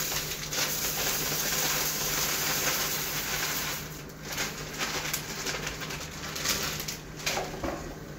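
Dry rice pouring from a plastic bag into a large steel pot of hot water for moro: a steady hiss of falling grains that stops about four seconds in. After that come a few short rustles and clicks.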